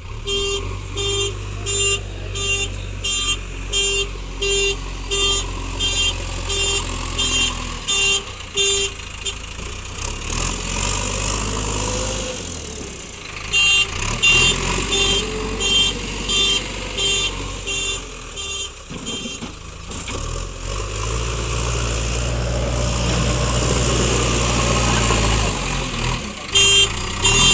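JCB backhoe loader's diesel engine running while its reversing alarm beeps about twice a second, in stretches that stop and start again. Between the stretches of beeping the engine works harder for a few seconds.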